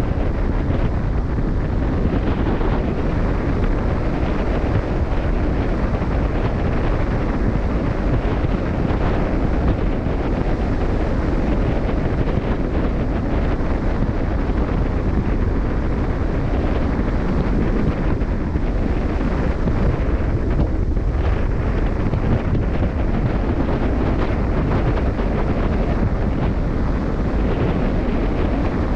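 Steady wind noise on the microphone aboard a cruise ship at sea, heaviest in the low end, over the rush of the open sea.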